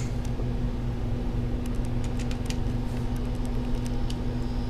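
Steady low background hum, with a cluster of light clicks and ticks about two seconds in as a laptop LCD panel and its plastic frame are handled.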